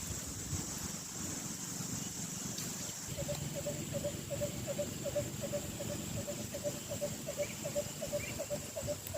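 An unidentified animal gives a rapid series of short, low calls, about four a second, starting about three seconds in, over a steady high-pitched insect drone.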